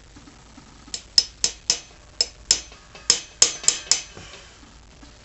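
About a dozen light, sharp metal taps over about three seconds, irregularly spaced: a small screwdriver being worked into the old shift shaft seal on the engine case of a Kawasaki two-stroke triple to catch an edge of the seal.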